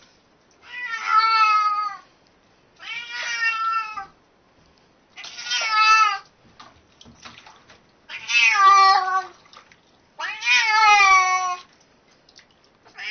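Domestic cat meowing loudly while being bathed in a basin of soapy water: five long drawn-out meows, each over a second and dropping in pitch at the end, about every two and a half seconds.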